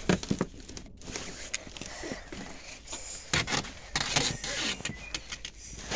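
Scraping and rustling from close handling, with scattered clicks and knocks, and faint voices now and then.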